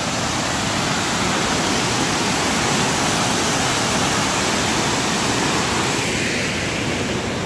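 Water pouring over a dam's spillway gate and crashing into the churning pool below: a steady rushing roar. It eases a little near the end.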